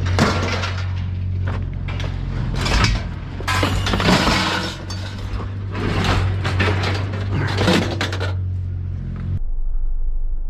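Scrap metal and junk being thrown out of a pickup, clattering and crashing in repeated impacts with some glassy breaking, over a steady low hum; the crashing stops about eight seconds in.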